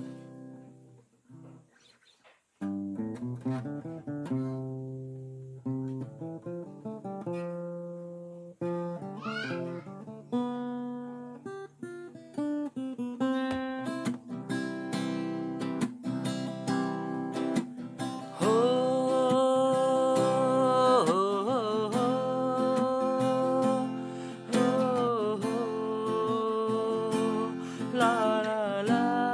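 Acoustic guitar picked and strummed, opening a song about two and a half seconds in. From about eighteen seconds in, a sustained singing voice with long held notes and slides comes in over the guitar.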